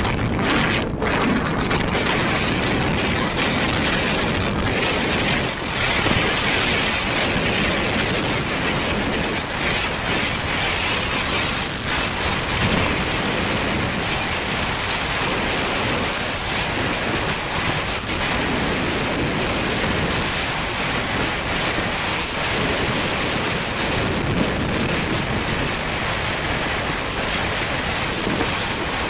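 Steady wind rush buffeting the microphone of a motorcycle riding along at road speed, with the road and bike noise blended into it.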